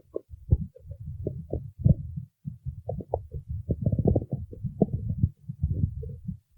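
Human stomach growling: a continuous, irregular run of low rumbles with many short gurgles on top. It is the growling of an empty, hungry stomach.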